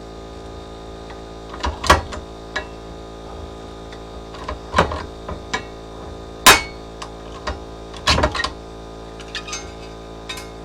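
Hand pop rivet gun being squeezed repeatedly to set a blind rivet: a series of sharp metallic clicks about every second or two, the loudest past the middle, over a steady hum.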